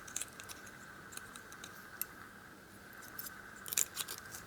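Small metal tool clicking and scraping against the circlip of a Euro cylinder lock while prying it off, in scattered light clicks with a short cluster of louder clicks near the end.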